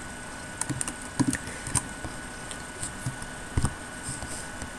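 Scattered, irregular clicks and taps from a computer keyboard and mouse, a few of them sharper than the rest, over a faint steady electrical whine.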